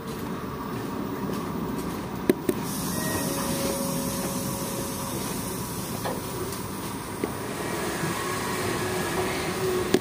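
Passenger train running: a steady rail rumble and hiss, with a sharp click about two seconds in, after which the hiss grows a little.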